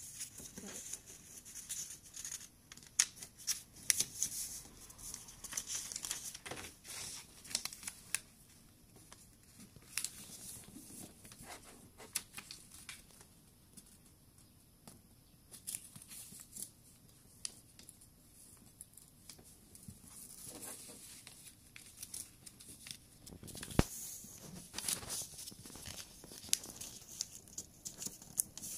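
A sheet of paper being folded into a paper airplane on a hard desk: rustling and crinkling, with sharp scraping strokes as the folds are creased flat. It comes in uneven clusters, busiest at first and again near the end, with a quieter stretch in the middle.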